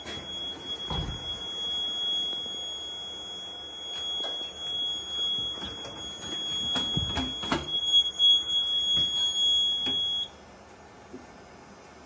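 The Notifier NFS-320C fire alarm panel's built-in sounder gives one steady high-pitched tone while the panel is in fire alarm. It cuts off suddenly about ten seconds in as the alarm is acknowledged at the keypad. Several knocks and thumps of handling sound over it.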